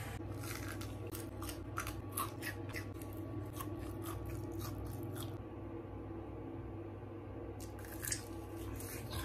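Close-up biting and chewing of crispy fried chicken: a quick run of short crunching clicks for the first five seconds or so, a quieter stretch of chewing, then a few more crunches near the end.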